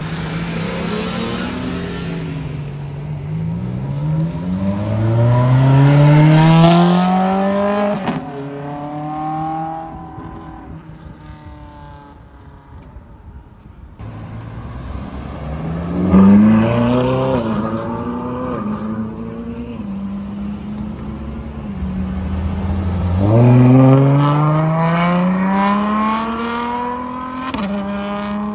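Ferrari sports car engines under full throttle: the engine note climbs steeply, drops at an upshift and climbs again, then fades. After a sudden cut, another Ferrari revs once, holds a steady note and accelerates hard, its note climbing and then falling away.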